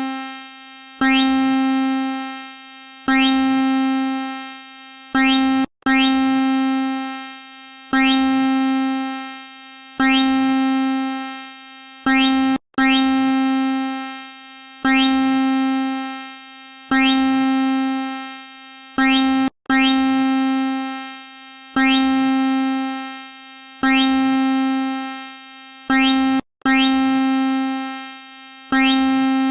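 Synthesized emergency-alert alarm: a low tone with many overtones sounds about every two seconds, each hit starting sharply with a rising high sweep and fading over a second or so. The pattern breaks with a brief cut roughly every seven seconds.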